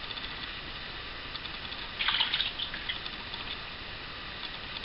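Soaked Seville orange pips and their water poured from a jug into a cloth bag in a pan: a short splashing gush about two seconds in, then a couple of smaller splashes.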